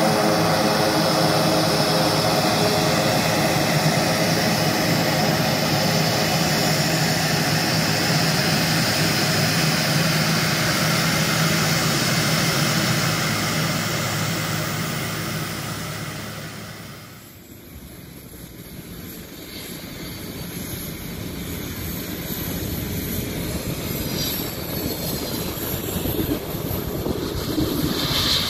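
Twin turboprop engines of an ATR 72 running, a steady propeller hum that fades out about two-thirds of the way through. After a cut, the jet engines of a Boeing 757 on a wet runway grow steadily louder.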